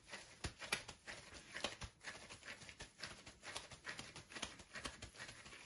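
Gloved hands patting and pressing chicken shami kebab mixture into a patty: a quick, irregular run of soft pats, several a second.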